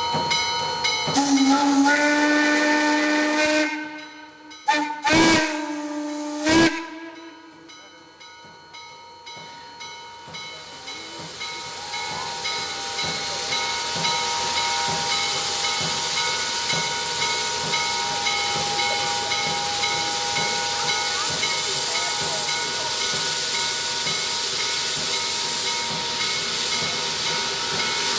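Steam whistle of C&O 1309, an articulated Baldwin steam locomotive: a long blast followed by a few short toots. Then a steady loud hiss of escaping steam builds up and carries on.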